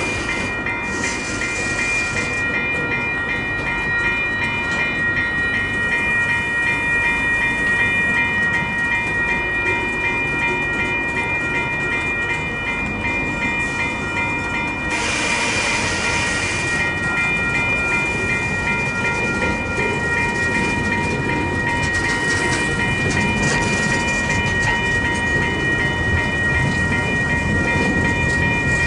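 Western Cullen Hayes electronic level-crossing bells ringing steadily while a long freight train of tank-container wagons rolls past, its wheels running on the rails.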